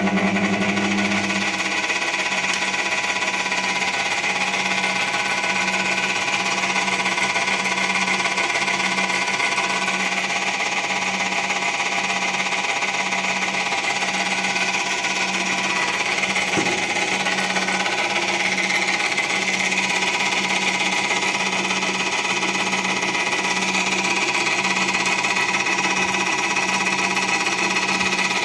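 Electric motor running steadily with a repetitive knock from its front bearing, which the owner puts down to the motor being started after a spell in storage.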